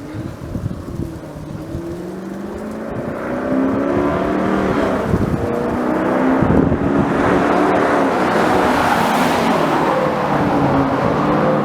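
Exhaust of a Dodge Durango's 5.7 L Hemi V8 through a Borla cat-back system, building revs over the first few seconds and then holding loud with a wavering, shifting pitch.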